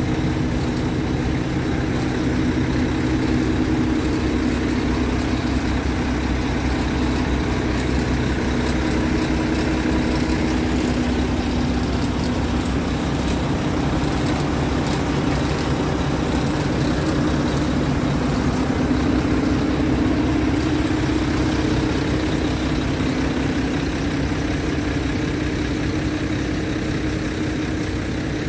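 Scania R-series V8 diesel truck engine idling steadily.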